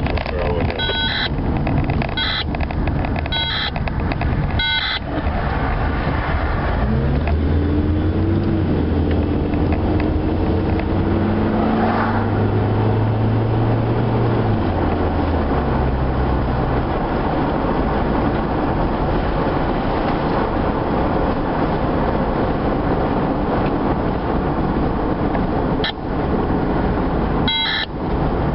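Heard from inside a moving car: steady road noise, with the engine pitch rising as it speeds up and then stepping down in a gear change about halfway through. A few short, evenly spaced clicking beeps come at the start and again near the end.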